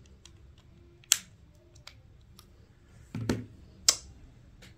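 Sharp plastic clicks and a duller knock from a LEGO Powered Up motor cable plug being pushed into its battery box and the box being handled and set down on a LEGO baseplate: a loud click about a second in, a knock a little past three seconds, and another sharp click just before four seconds.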